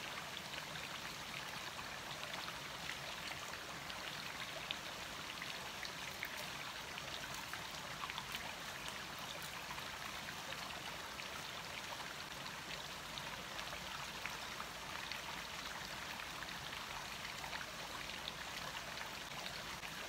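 A small stream trickling and splashing over rocks, a faint, steady rush of water.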